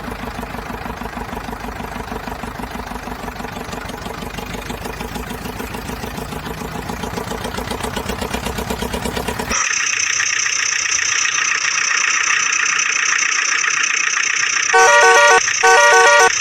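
Engine sound effect running with a rapid, even pulse, which cuts off abruptly about ten seconds in and gives way to a steady high-pitched whine. Two short bursts of electronic beeping come near the end.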